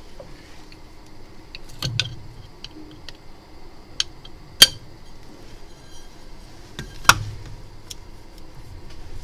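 Metal mould plates of a phone-screen laminating machine being handled and set in place: a few sharp metallic clicks and knocks, the loudest about four and a half seconds in.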